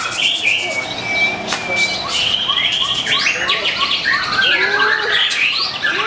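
Several caged white-rumped shamas singing at once: dense, overlapping whistled phrases and trills with runs of rapid chattering notes.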